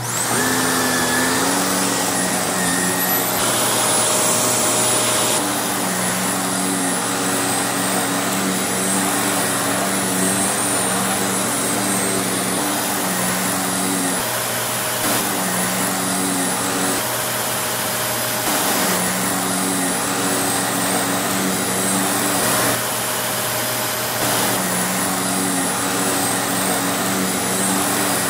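Vacuum cleaner running: a loud, steady rushing with a motor hum that shifts up and down in pitch every second or two. It comes on abruptly at the start.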